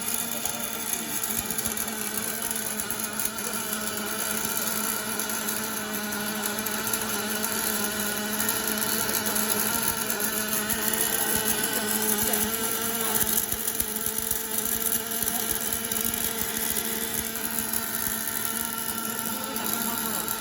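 A 5-axis CNC welding machine running: a steady hum with several constant tones and a hiss, unchanging for the whole stretch.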